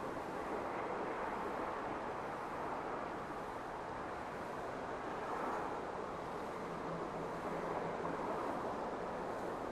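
Steady, even outdoor noise of a distant valley, with a faint low hum for about a second near the end.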